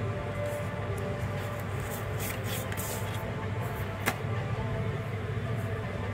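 Paper rustling as a small instruction booklet is handled, with a single sharp click about four seconds in, over a steady low hum.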